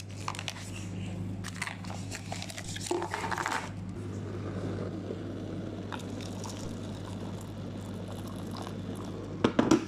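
Plastic lid and packets of an instant tteokbokki cup rustling and clicking as they are handled, then water pouring steadily into the paper cup for about five seconds, with a couple of sharp knocks near the end.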